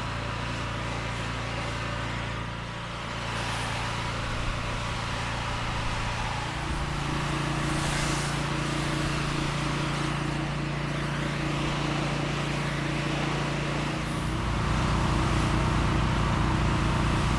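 Pressure washer engine running steadily under the hiss of the lance's water jet on block paving, as the drive gets its final rinse. The engine tone steps to a new pitch about six seconds in and again near the end.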